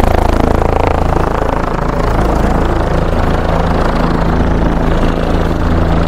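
Helicopter running on the ground on its helipad, its turbine and rotor making a loud, steady low hum.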